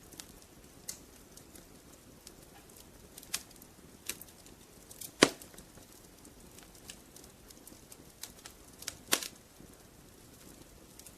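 Wood fire crackling in a fireplace: irregular sharp pops and snaps over a low steady hiss. The loudest pop comes about five seconds in, and there is a quick cluster of snaps about nine seconds in.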